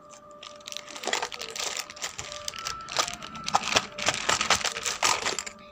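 Plastic courier mailer bag crinkling and crackling in the hands, a dense run of sharp clicks that starts about a second in and stops near the end.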